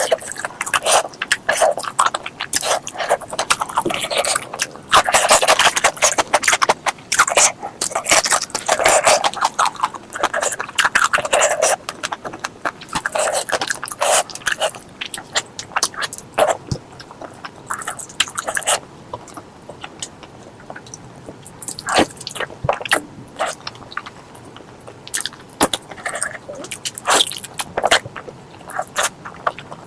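Close-miked eating sounds of pork curry and rice being chewed: wet chewing and mouth smacks, dense through the first two-thirds, then thinning to scattered clicks.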